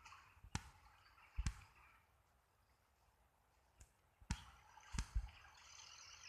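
Several sharp knocks over a faint outdoor background, the loudest about one and a half seconds in with a low thud, and two close together near the five-second mark. A faint high wavering trill begins near the end.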